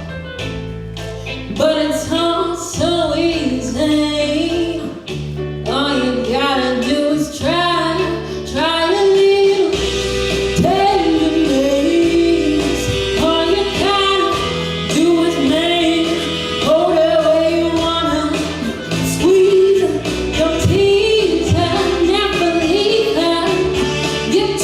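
Live band music with a woman singing over it and sustained low bass notes underneath.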